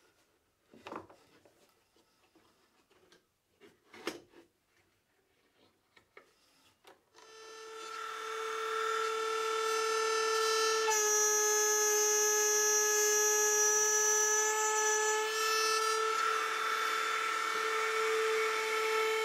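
A few light knocks of plywood being handled, then about seven seconds in a router motor spins up to a steady high whine and runs while a plywood piece is fed along the fence to rout a slot. Its pitch shifts a little twice as the bit cuts.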